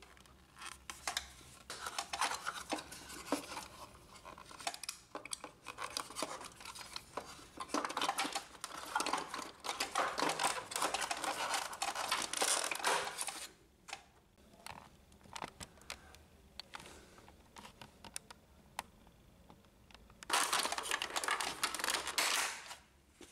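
Hard plastic printer parts being handled: the power supply unit's casing is fitted into the printer's plastic base and a cover panel pressed into place. Irregular scraping and rubbing with scattered clicks, densest in a stretch in the middle and again shortly before the end.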